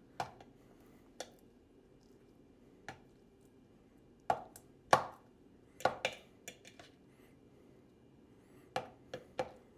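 Irregular light clicks and taps of a utensil on a plastic microwave steamer and its rack as chicken pieces are turned over one by one, with small clusters around the middle and near the end.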